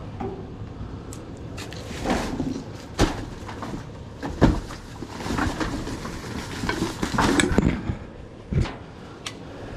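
Scrap being handled and knocked about: a few sharp knocks, about three and four and a half seconds in and again near the end, with scraping and rustling between them over a low steady rumble.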